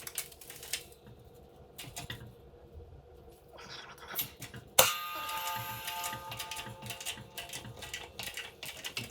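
Steering stem of a dirt bike's lower triple clamp being pushed through its bearing on a shop press. Scattered metal clicks and taps come first. Then, about five seconds in, one sharp loud crack as the stem breaks free, and the steel parts ring on for a few seconds.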